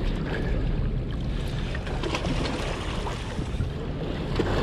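Small waves washing and sloshing against the rocks of a harbour breakwater, with wind rumbling on the microphone.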